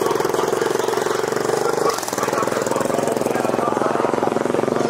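An engine running steadily with a rapid, even pulsing, dipping briefly about two seconds in.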